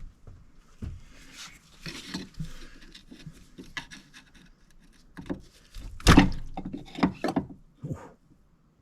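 A series of irregular knocks and clunks, with some scraping, as tools and parts are handled during work on the machine. The loudest knock comes about six seconds in.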